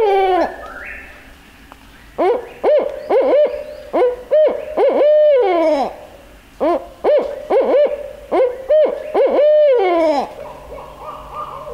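Barred owl hooting: two rhythmic phrases of hoots, each ending in a longer hoot that slides down in pitch. A fainter, rapidly fluttering sound follows near the end.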